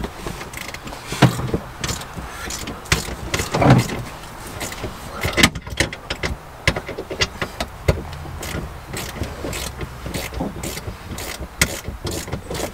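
Socket ratchet clicking as the seat's mounting bolts are worked loose, with a few louder knocks in the first half and quicker runs of clicks later on.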